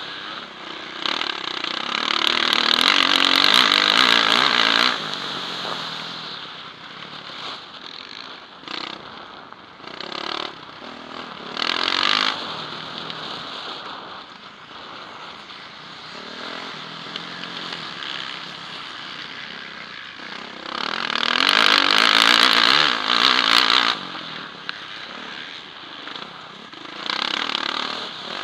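Yamaha motocross bike's engine under race throttle, heard through a helmet-mounted camera: it revs hard in loud bursts (a long one about a second in, a short one near the middle, a longer one past two-thirds of the way, and one near the end), falling back to a quieter running sound between them.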